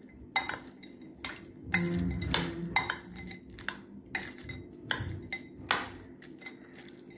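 Spoon stirring a chunky mix of peanuts, scrambled egg and chopped onion in a glass bowl. Sharp clinks against the glass come about twice a second, with softer scraping between them.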